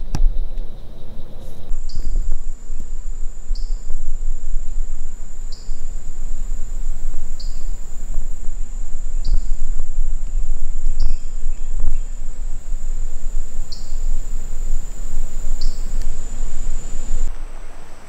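Insects calling: a steady high-pitched trill starts about two seconds in and stops shortly before the end, and a short, lower call repeats about every two seconds over it. A steady low rumble runs underneath.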